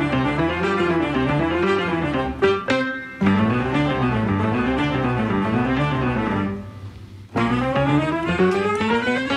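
Background music with a melody over a bass line, cutting out briefly near the end before starting again.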